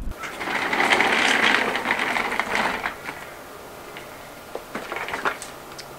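Office chair rolled across outdoor paving, its casters rattling for about three seconds, then a few sharp clicks as it is set in place.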